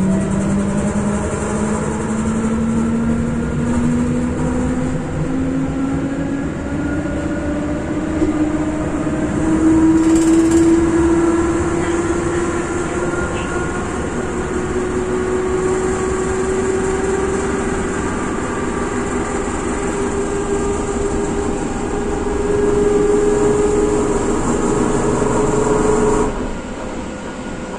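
EN57 electric multiple unit heard from inside its motor car, the traction motors and gearing whining under the running noise and rising slowly and steadily in pitch as the train gathers speed. Near the end the whine cuts off suddenly, leaving quieter rolling noise.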